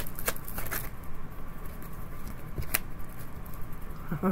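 Tarot cards being shuffled by hand: a quick run of light card clicks in the first second, then one more click about two and three-quarter seconds in, over a low steady hum.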